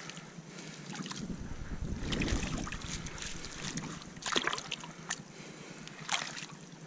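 Water sloshing and lapping in a shallow rock pool as hands grip and shift a submerged stone among kelp, with a low rumble of moving water and a few short sharp clicks.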